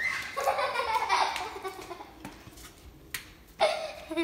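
Young children laughing and giggling, then a quieter moment, then a high-pitched child's voice again near the end.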